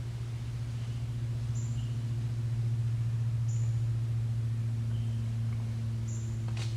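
A steady low hum, with a faint, short, high chirp about every two seconds and a faint click at the very end.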